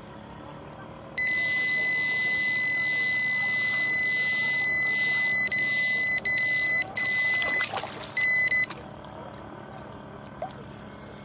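Electronic carp-fishing bite alarm sounding a steady high tone as a carp runs with the line, unbroken for about four seconds, then broken into a few shorter beeps before it stops.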